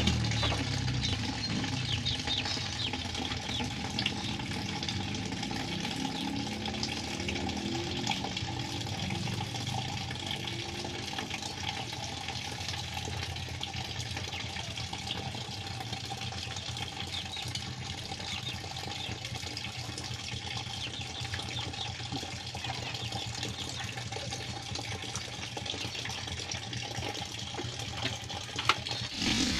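Guinea pig chewing cucumber: a rapid, continuous wet crunching of fine ticks, over a steady background hum.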